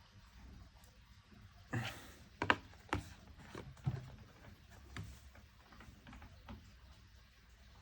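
A string of light clicks and knocks, about half a dozen, from an iPhone 11 being handled as it is switched on; the sharpest comes about two and a half seconds in.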